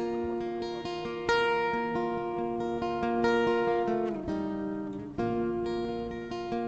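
Guitar music: strummed chords left to ring, with a short falling glide in pitch about four seconds in.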